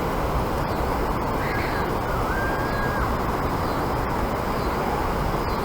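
Steady rushing noise of water flowing over the dam, even throughout. A faint short bird call comes about one and a half seconds in.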